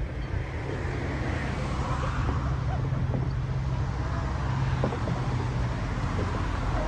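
A low, steady engine hum, strongest in the middle few seconds.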